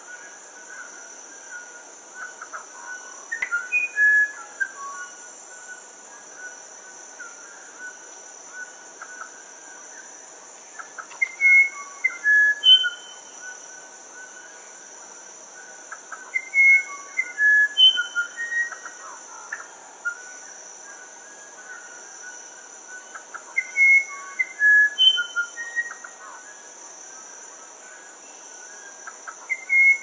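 Musician wren (uirapuru) singing: four short phrases of clear whistled notes at changing pitches, about one every seven seconds, with softer notes running between them. A steady high insect drone goes on underneath.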